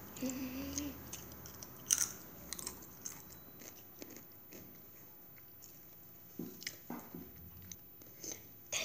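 Doritos tortilla chips being bitten and chewed, with scattered sharp crunches, the sharpest about two seconds in.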